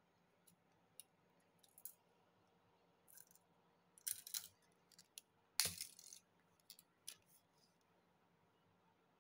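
Faint clicks and light metallic rattles from handling a steel tape measure and a coil of stainless steel wire, with the loudest clatters about four and six seconds in.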